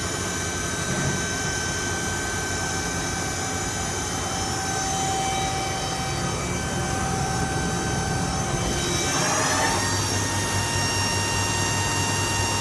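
Toyoda FV1365 vertical machining center's geared-head spindle running at about 5,000 rpm with a steady whine of several tones. About nine seconds in the tones rise and settle higher as the spindle speeds up toward its 6,000 rpm top speed.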